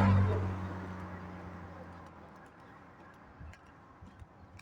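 A motor vehicle passes close by, its engine hum and tyre noise peaking at the start and fading away over about two seconds.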